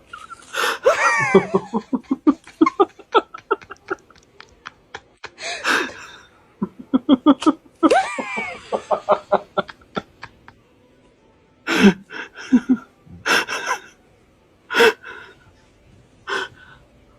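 Hard laughter in rapid ha-ha pulses, twice breaking into high-pitched squeals, then a few short, sharp gasps spaced about a second apart in the second half.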